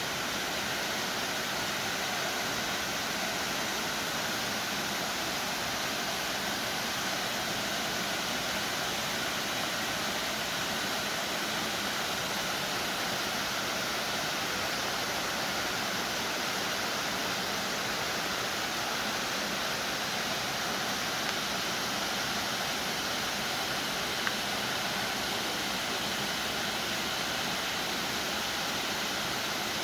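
Waterfall's steady rush of falling water, an even hiss without change.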